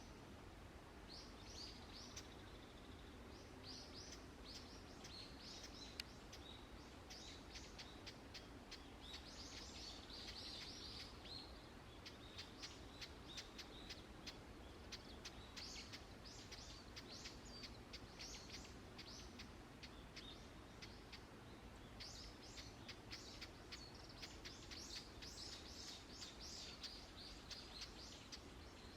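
Wild birds chirping, many short high chirps in quick runs, over a faint steady background hush, with a single sharp click about six seconds in.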